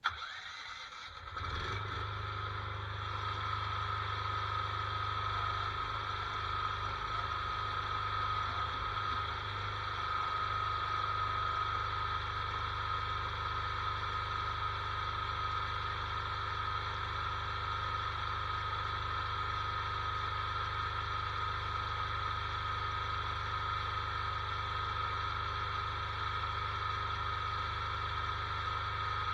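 Tractor engine running at a steady speed, with a steady high whine above it. The sound starts abruptly and settles about a second and a half in.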